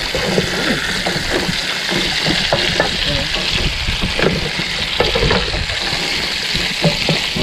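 Diced luncheon meat and vegetables sizzling steadily in hot oil in a frying pan, stirred and scraped around with a wooden spatula in repeated strokes.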